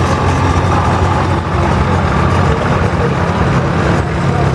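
Allis-Chalmers tractor engine running steadily as it passes close by towing a loaded passenger wagon, with other antique tractor engines running behind it.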